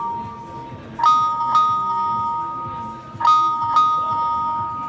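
Google Pixel phone ringtone playing from the phone's speaker: a bell-like chime of two sustained notes, struck twice in quick succession and repeating about every two seconds.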